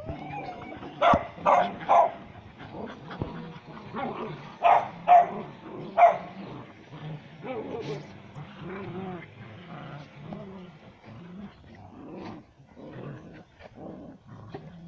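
Dogs barking: about six short, sharp barks in the first six seconds, then quieter, lower growling sounds for the rest of the time.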